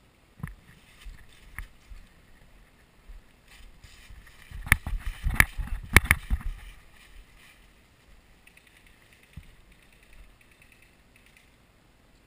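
Running footsteps crunching through dry fallen leaves, with knocks of gear on the body-worn camera, a dense burst from about four and a half to six and a half seconds in; a few single knocks come before.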